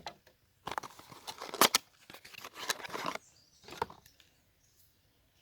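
Hands handling the plastic parts and packaging of a small dehumidifier: a run of rustling, knocks and clicks, with a last click about four seconds in.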